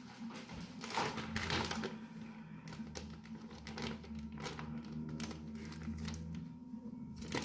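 Plastic bag of potato starch crinkling and rustling as it is handled and opened, in irregular small clicks and crackles, over a steady low hum.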